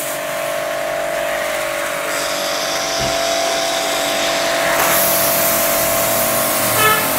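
Portable electric pressure washer's motor-pump running with a steady hum while its foam cannon sprays with a hissing rush that grows louder about two seconds in and again about five seconds in. The hum and spray cut off near the end as the gun is released.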